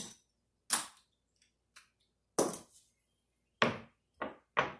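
Casino chips clacking as they are picked up, stacked and set down on a craps table layout: half a dozen sharp, separate clicks, irregularly spaced.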